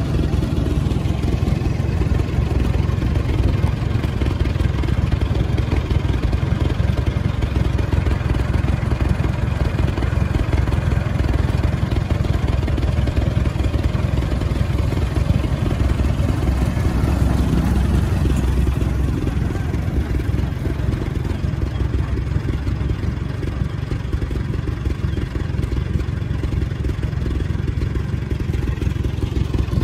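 Antique farm tractor engines running steadily at travelling speed, a dense low rumble with no break.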